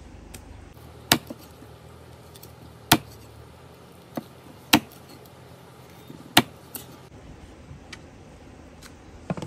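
Heavy cleaver chopping fish into pieces on a wooden log chopping block: four hard chops spaced about one and a half to two seconds apart, with a few lighter knocks in between and another chop right at the end.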